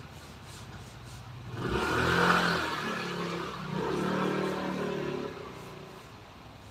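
A motor running for about four seconds, swelling twice and then dying away.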